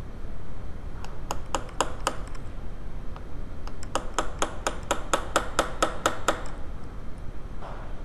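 Hammer tapping metal to drive the roll pin out of a VW distributor shaft: a run of five sharp, ringing taps, then after a pause about a dozen quicker taps at about five a second.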